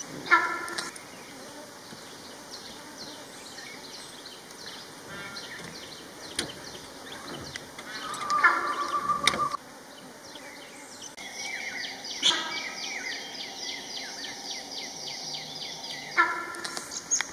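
Forest ambience of wild birds calling: short pitched calls about a second in, again around eight seconds in and near the end, and a long run of quick high chirps in the second half.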